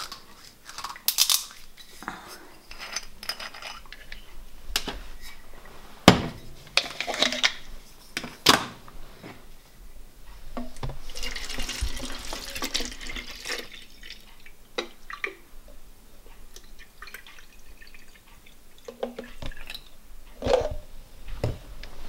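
Lemon juice poured from a glass bottle into a plastic spray bottle, a pour of about two and a half seconds a little past halfway. Around it, scattered clicks and knocks of the bottles and the unscrewed spray head and cap being handled on the stainless-steel dishwasher door.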